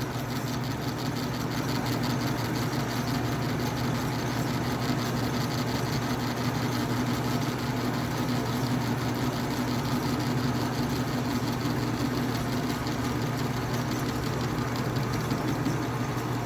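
Metal lathe running steadily with an even hum, turning an electric motor rotor for a light smoothing cut.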